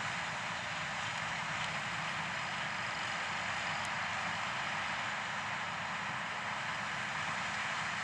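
John Deere combine harvester and a grain-cart tractor running steadily side by side as the combine cuts corn and unloads on the go; an even, unbroken machine noise.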